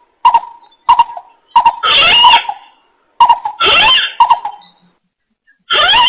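Bird-trapping lure recording of greater coucal (bìm bịp) calls: short clipped notes repeated every second or so, broken by longer harsh calls that rise in pitch, two in the middle and another starting near the end.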